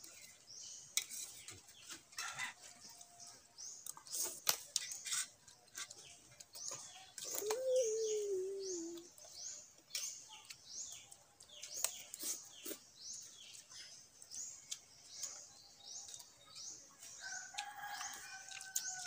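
Backyard bird sounds: a long run of short, high chirps, two or three a second, with a rooster crowing near the end. Scattered sharp clinks of spoons on steel plates.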